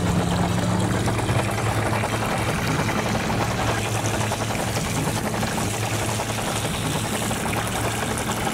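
Loose gravel or sand pouring and rattling continuously as toy construction vehicles dig and dump it, with a low steady hum underneath.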